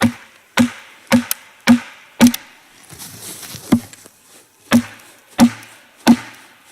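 Sharp wooden knocks of blows driving a wooden wedge into the crack of a log to split it open: a run of five strikes about two a second, a short pause, then three more.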